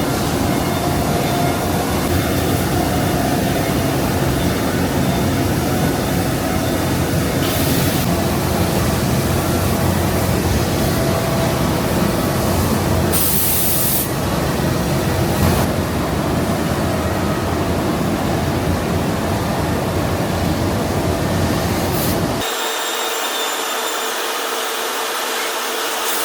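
Steady din of factory machinery with several steady hums, broken by short high hisses twice. Near the end the deep rumble drops out abruptly.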